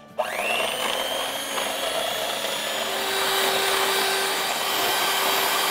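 Electric hand mixer switched on, its motor whine rising as it spins up, then running steadily as the beaters whip heavy cream in a glass bowl.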